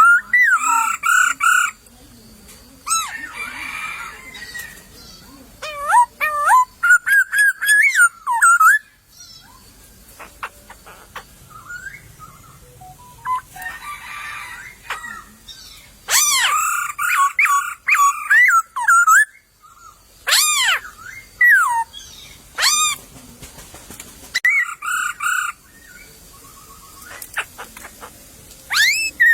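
Poksay laughingthrushes singing: bouts of loud whistled phrases that glide up and down, with harsher noisy calls between them and short quiet gaps.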